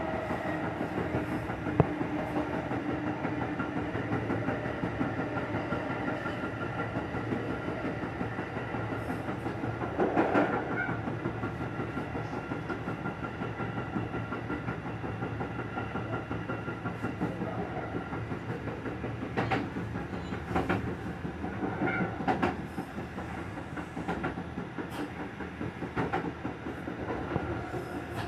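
Kintetsu Urban Liner limited express running, heard from inside the driver's cab: a steady running noise with a whine that fades after the first few seconds. The wheels click and knock over the track now and then, loudest about ten seconds in.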